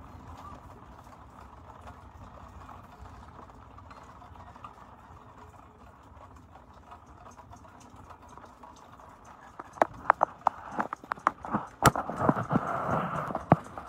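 Faint steady background hiss, then from about ten seconds in a rapid, irregular run of sharp clicks and knocks.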